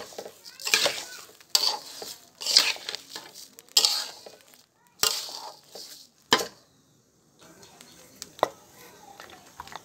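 Metal spatula stirring and tossing raw rice in a large pot. Each stroke is a rushing rattle of grains, about six in all roughly a second apart, then it goes quieter with one sharp clink near the end.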